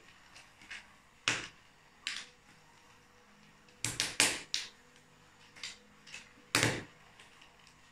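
Battery toy train running around a plastic track with a faint steady motor hum, amid a series of sharp plastic clicks and knocks at irregular intervals, the loudest bunched about four seconds in.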